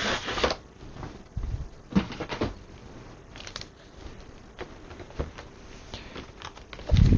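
Packaging being pulled open and handled: a tearing hiss that stops about half a second in, then scattered rustles and light taps, and a dull thump near the end.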